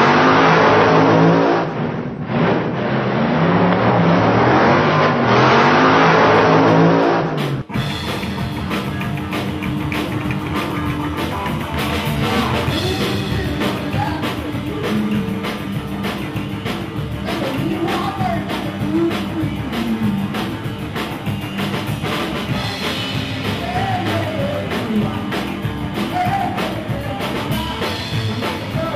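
A live rock and roll band playing: a woman singing over upright double bass, hollow-body electric guitar and a drum kit, with the sung melody rising and falling. It starts abruptly about eight seconds in, cutting off a loud rushing intro sound.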